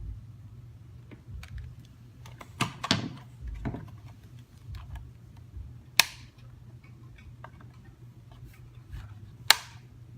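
Scattered clicks and knocks, with two sharp loud clicks about six and nine and a half seconds in, over a faint low hum.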